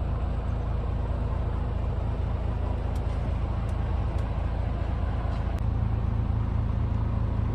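The 10.8-litre six-cylinder diesel engine of a 2016 DAF CF330 lorry idling steadily, a little stronger about five and a half seconds in, with a few faint clicks.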